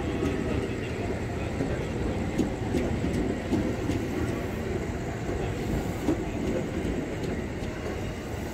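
KRL commuter electric multiple-unit train passing at speed: steady wheel-on-rail rumble with scattered clicks as wheels cross rail joints, easing off slightly as the last cars go by.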